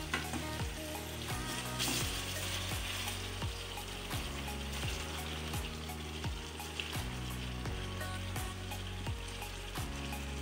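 Marinated chicken leg pieces going into hot oil with tomatoes and green chillies in a kadai, sizzling steadily as they fry, with small clicks and spits as the pieces are placed.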